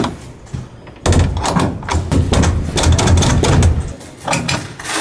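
Cordless impact driver running for about three seconds from a second in, driving a screw through a flat metal hinge into a wooden window frame, with rattling clicks and knocks, then stopping abruptly.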